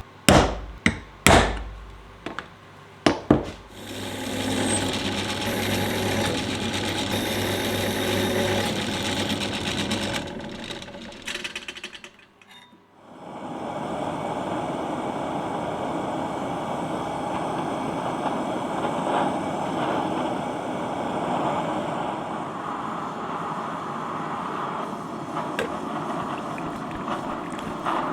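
About five hammer blows on steel at the start, then a power tool running steadily with a low hum. About halfway through the sound drops away briefly and a steady rushing machine noise takes over.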